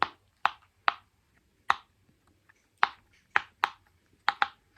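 Silicone push-pop fidget toy being pressed, its bubbles popping one after another: about nine quick, sharp pops at an uneven pace.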